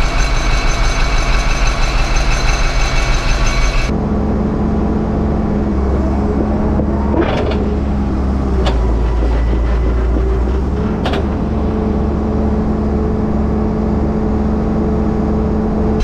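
Caterpillar D4 bulldozer's diesel engine running hard under load as it pulls on a tow strap hitched to a D11 dozer, heard first inside the cab and then from outside after about four seconds. Three sharp metallic knocks come through the engine noise later on.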